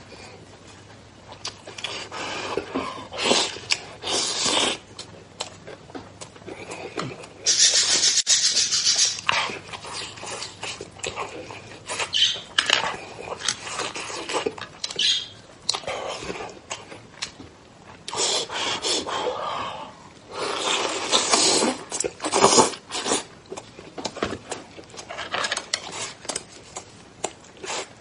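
Close-miked wet chewing and lip-smacking of a man eating braised pork knuckle, coming in irregular bursts, loudest about eight seconds in and again around twenty to twenty-two seconds.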